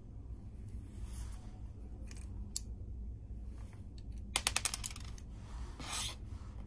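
Small clicks and rubbing from a digital caliper and small 3D-printed plastic parts being handled on a table: a single sharp click, then a quick run of small clicks just past the middle, and a short swish near the end, over a steady low hum.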